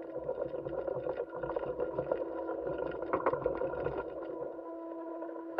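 Steady machine hum with a few fixed tones, one lower and several higher, and frequent light clicks and ticks throughout: the background noise on the soundtrack of spacewalk camera footage.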